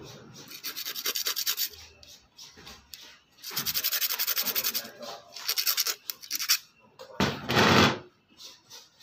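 A small metal part being rubbed by hand on an abrasive sanding disc: three spells of quick back-and-forth scratchy strokes, several a second. Near the end there is one short, louder burst of noise.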